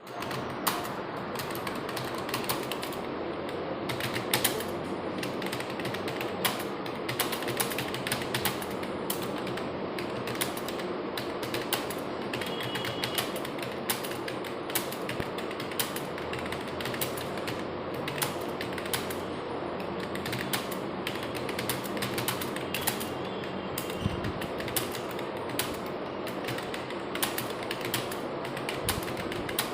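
Fast, continuous typing on a computer keyboard: an unbroken stream of rapid key clicks.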